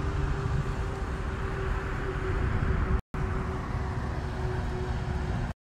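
Steady outdoor background rumble, heaviest in the low end, with a faint steady hum running through it. It drops out briefly about three seconds in and cuts off abruptly near the end.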